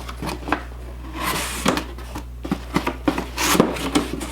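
Handling a cardboard shoe box: irregular knocks and clicks with short scraping or rustling bursts as it is opened and its contents moved about.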